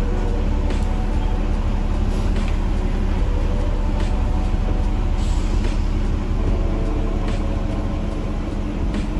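Double-decker bus's diesel engine running close by, a steady low rumble with street traffic behind it.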